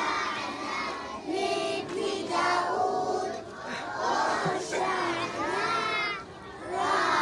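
A group of young children singing and chanting together in short phrases, with crowd voices around them.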